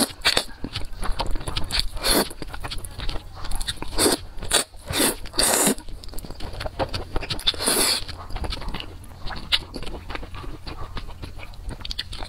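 Close-miked eating of saucy noodles: wet chewing and lip-smacking clicks, broken by several rushing slurps of under a second each, around two, four, five and eight seconds in.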